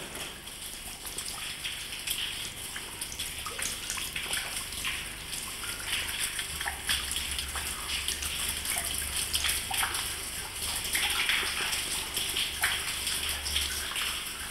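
Water dripping and trickling: many irregular drops and small splashes over a steady hiss.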